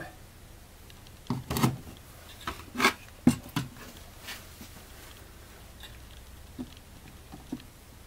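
Car heater blower motor parts handled on a metal workbench: a cluster of short knocks and clinks of metal and plastic parts being moved and set down in the first half, then a couple of faint taps near the end.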